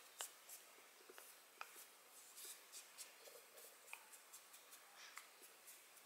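Near silence with faint, scattered soft ticks and rustles: fingertips patting and rubbing blush onto the skin of the cheeks.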